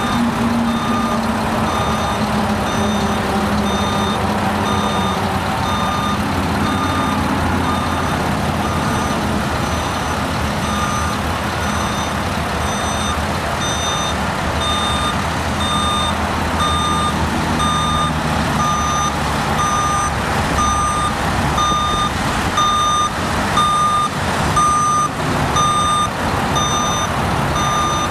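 Telehandler backup alarm beeping at an even pace over its diesel engine running, the beeps growing louder in the second half. A few louder knocks and clatters come in the latter part.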